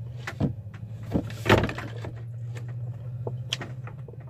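Knocks and clicks from a sink drain hose and its fittings being handled and worked into place, the loudest knock about a second and a half in, over a steady low hum.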